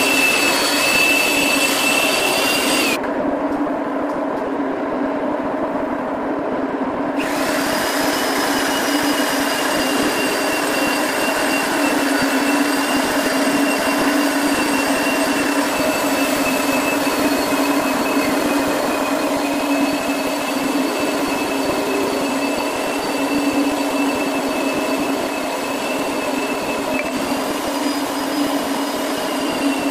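Hand-held electric polisher running steadily with a diamond pad on a marble floor, giving a steady whine made of several held tones. The higher tones drop out for a few seconds from about three seconds in, then return.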